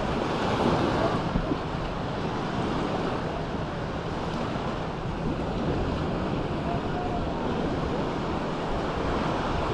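Surf washing onto the beach, with wind on the microphone: a steady rush that swells briefly about a second in.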